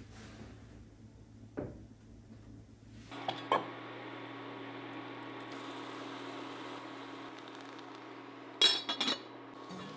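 Water boiling in an enamel pot, a steady bubbling hiss with a faint hum, starting about three seconds in. Near the end the pot's lid clatters loudly against the rim in a quick run of metallic clanks.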